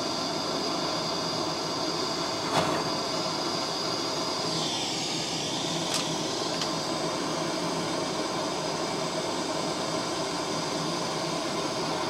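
Handheld gas torch burning with a steady hiss as it heats a copper pipe joint while solder is fed in to sweat it. Two short clicks, about a quarter of the way in and again about halfway.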